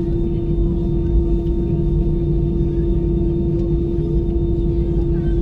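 Cabin noise of an Airbus A320 moving slowly on the runway before takeoff, its jet engines near idle: a steady low rumble with one constant hum tone, holding level with no spool-up.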